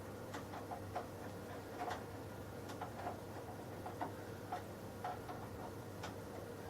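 Small round-head screw being driven into the graphics card's bracket in a PC case with a screwdriver: irregular light metal clicks, about two or three a second, over a faint steady hum.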